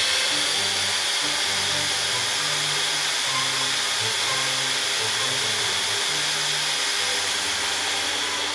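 Brushed electric motors and drivetrains of RC cars running flat out on roller speed-test stands: a loud, steady high whine over a dense hiss that starts abruptly just before and holds at full speed. Soft background music plays underneath.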